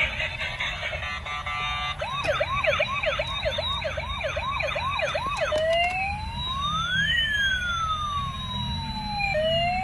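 Toy ambulance's electronic siren sounding: a fast yelp of about three rising-and-falling sweeps a second starts about two seconds in, then switches to a slow rising and falling wail.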